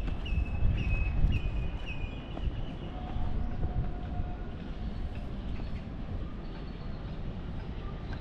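A bird calling a quick series of about five short, falling whistles in the first couple of seconds, over a steady low rumble of background noise.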